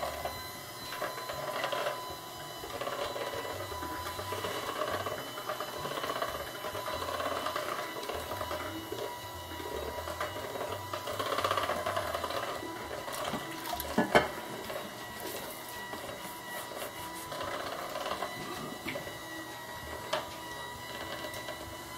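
Electric hand mixer running on its lowest speed, its beaters churning chocolate lava cake batter in a plastic bowl, with a steady motor whine. A sharp knock about two-thirds of the way through, as from a beater striking the bowl.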